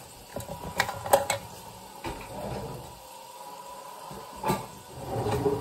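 Kitchen handling sounds: a few sharp clicks and knocks as a glass jar's lid is worked and things are set down on the counter, over a faint steady hum.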